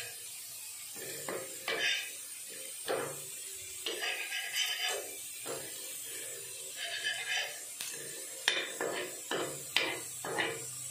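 Metal spatula scraping and knocking against a flat tawa with bitter gourd fritters frying on it: a string of irregular scrapes and clinks over a steady faint hiss.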